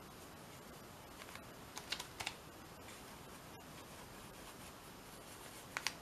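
A few faint, light taps and clicks of fingertips on a paper art-journal page over quiet room tone: a small cluster about two seconds in and one more near the end.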